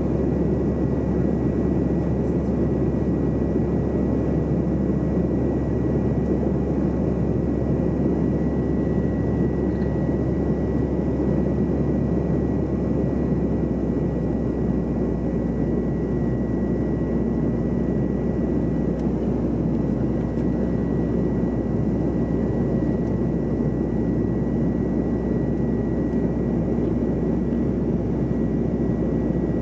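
Steady cabin roar inside a Bombardier CRJ regional jet in flight: rushing air and the hum of its rear-mounted turbofan engines, with a faint high whine throughout. About halfway through, the low hum shifts and a steady mid-pitched engine tone comes in.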